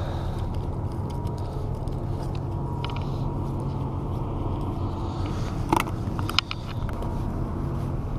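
Wind rumbling steadily over an action camera's microphone, with a few sharp clicks about three seconds in and twice around six seconds in as fishing gear is handled.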